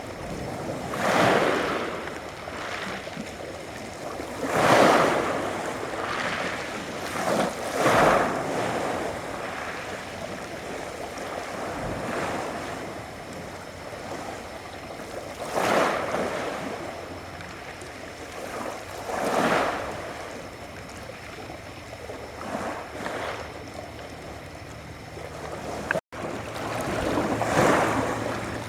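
Adriatic Sea waves washing onto the shore, about six swells of surf at irregular intervals over a steady wash of water. A brief dropout comes near the end, after which a low steady hum joins the surf.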